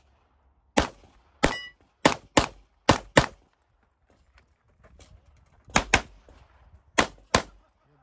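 Pistol shots fired in quick pairs: six in the first few seconds, then a pause of about two seconds, then two more pairs, ten shots in all.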